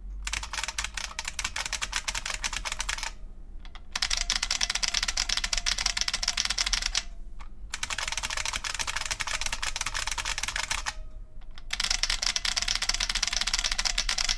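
Fast typing on IBM capacitive buckling-spring keyboards, very clicky, in four bursts with short pauses between them. The bursts alternate between an IBM Model F XT and the IBM 5155 portable's keyboard, whose clicks sound much the same but noticeably lower in pitch.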